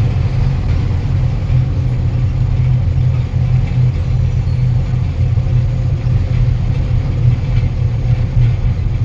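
Truck engine running steadily with a deep, even drone.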